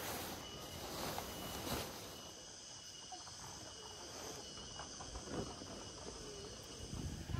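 A steady chorus of insects such as crickets, with several thin high whining tones held evenly, over a faint outdoor hiss. A few soft knocks or rustles come in the first two seconds.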